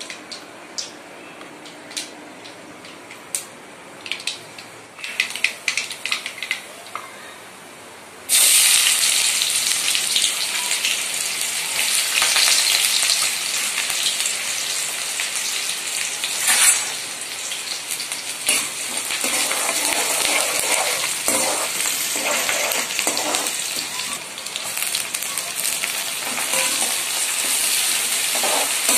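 Chopped onion and green chilli hitting hot sesame oil in a metal kadai: a sudden loud sizzle about eight seconds in, which carries on while a metal ladle stirs them. Before that, scattered taps and clicks.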